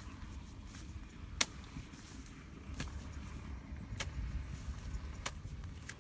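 Bamboo pole being jabbed into the soil and grass of a pond bank, giving five sharp knocks a little over a second apart over a low steady rumble. The first knock is the loudest.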